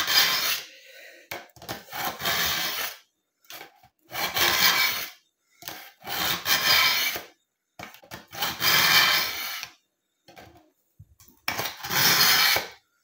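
Kitchen knife blade drawn through the coarse slot of a BAUM ZINDECH ZRT-400 manual pull-through sharpener: a rasping scrape with each pull, six strokes about two seconds apart. The coarse stage is cutting hard enough to take shavings off the blade.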